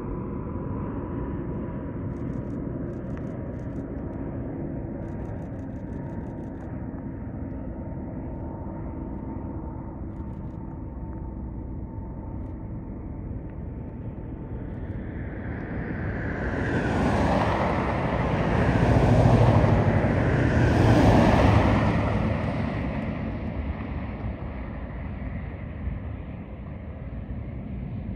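Airbus A330 MRTT Voyager's twin Rolls-Royce Trent 700 turbofans on landing, a steady jet rumble with a whine slowly falling in pitch. The engine noise swells to its loudest about 17 to 22 seconds in, then fades again.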